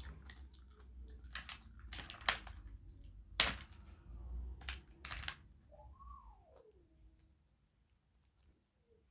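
Boiled crayfish shells cracking and crackling as they are pulled apart by hand: a run of sharp snaps, the loudest about three and a half seconds in, dying away in the last few seconds.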